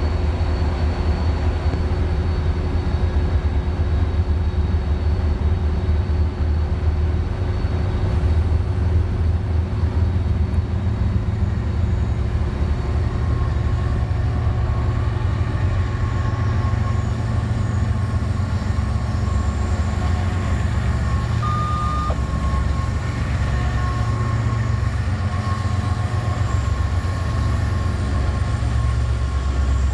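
Diesel freight locomotives passing at close range, their engines running with a heavy, steady low rumble. About a third of the way in the scene changes to a BNSF GE locomotive-led freight, and faint steady high tones sit over the rumble.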